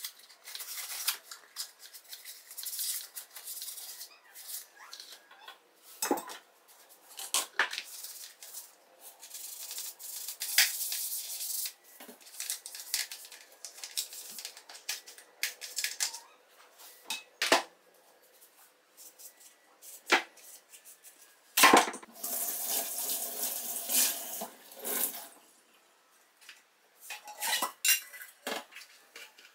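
Cleaning a small electric kitchen appliance's base and cord at a stainless steel sink: irregular clatter, clicks and knocks of the parts being handled, with stretches of cloth scrubbing. The loudest knock comes a little past the middle and is followed by a few seconds of scrubbing.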